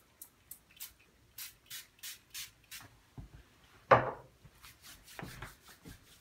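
Small pump-spray bottle misting into a palm: about nine short spritzes in the first three seconds. Then a louder bump about four seconds in, followed by hands rubbing together.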